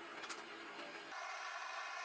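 Faint rubbing and light handling clicks, cut off about a second in by a steady mechanical hum.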